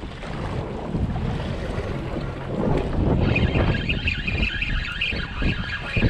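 Wind buffeting the microphone aboard a fishing boat, a steady low rumble, with a faint high wavering tone joining about three seconds in.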